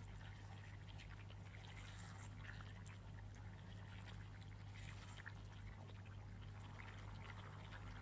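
Faint scattered crackles from the stew in the pot, over a steady low hum.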